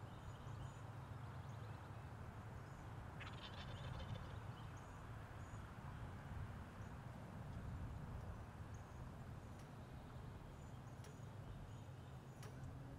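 Distant wild turkey gobbler gobbling once, about three seconds in, over a steady low rumble of wind, with faint songbird chirps in the background.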